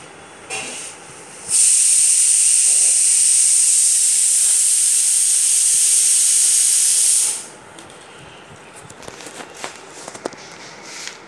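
A loud, steady hiss that starts about a second and a half in, holds evenly for about six seconds and then cuts off, followed by a few faint light clicks.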